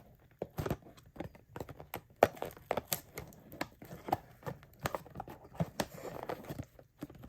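Smoke-alarm box and packaging being pulled open and handled: crinkling, tearing and rustling with many sharp clicks and taps.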